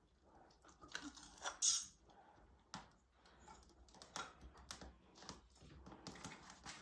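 Faint, irregular clicks and crackles from a fire being lit in a fireplace: kindling and paper that will not catch.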